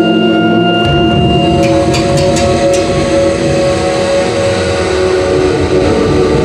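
Indoor percussion ensemble playing a loud, droning passage: held tones over a dense low rumble, with a quick run of sharp metallic strikes about two seconds in.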